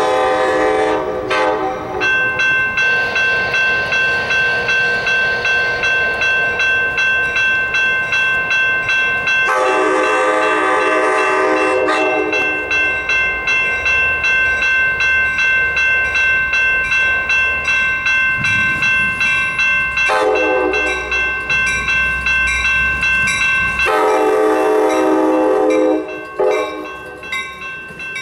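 Amtrak California passenger train's multi-chime horn sounding four long blasts as it departs. Between the blasts a grade-crossing bell rings about twice a second, with a low rumble of the train moving underneath.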